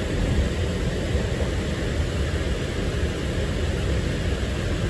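Steady low rumble inside a moving Sydney Trains K set double-deck electric train, from the wheels on the rails and the running gear. It is loud, quite a bit louder than the other Sydney trains.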